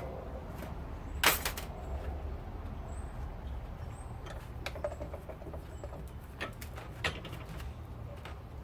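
Scattered clicks and knocks of a garment steamer's parts being handled as it is taken apart, the loudest about a second in, over a steady low hum.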